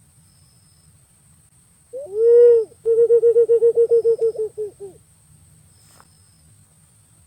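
Punai green pigeon calling: one drawn-out low whistled note, then a quick run of about fifteen shorter notes at the same pitch that trail off.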